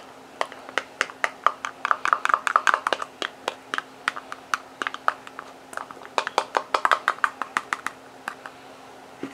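Metal spoon stirring and scraping in a small container of reconstituted mayonnaise substitute, mixing the freeze-dried cubes with cold water: a run of quick, irregular clicks and scrapes, several a second, coming in bunches.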